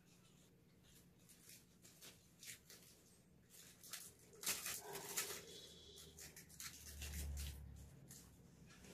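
Faint scattered clicks and ticks, then a louder burst of rustling about four to five seconds in, followed by a brief low rumble near seven seconds.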